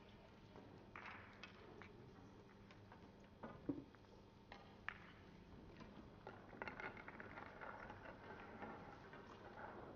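Near-silent playing hall: a single sharp knock about three and a half seconds in and a lighter click about five seconds in, then a faint murmur of background voices through the second half.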